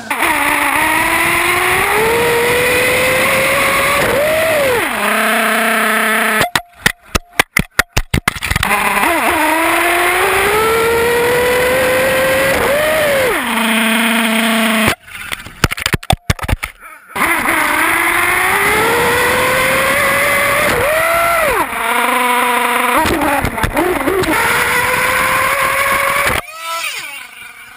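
Kyosho Inferno RC buggy's small engine, heard from a camera mounted on the car, revving up under throttle. Three times its pitch climbs steadily for several seconds, then drops sharply, followed by a choppy, stuttering stretch.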